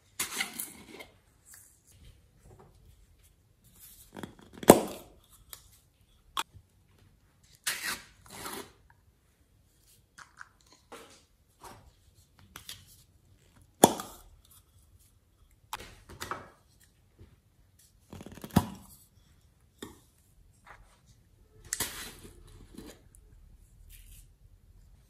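Plastic topping containers being handled, opened and shaken over a glass tray of slime: irregular sharp clicks and knocks with short crisp rustles, the loudest knocks about five and fourteen seconds in.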